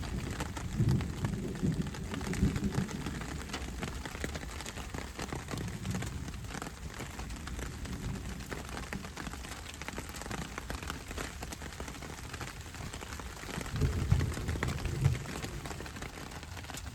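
Steady rain falling, a dense patter of drops, with a few short low rumbles about a second in, around two and a half seconds in, and twice near the end.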